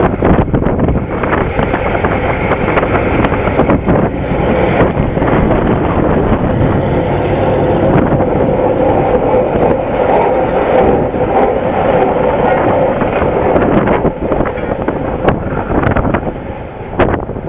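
A diesel-electric locomotive running along the track: a loud steady rumble with scattered clicks and knocks, and a faint steady tone in the middle.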